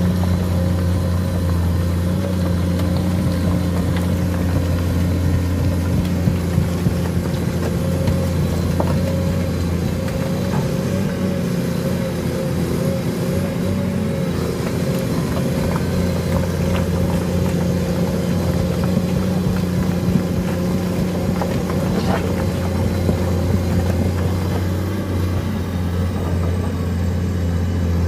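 Komatsu PC210 excavator's six-cylinder diesel engine running at a steady, heavy note as the crawler works along a mud track, with a few light knocks now and then.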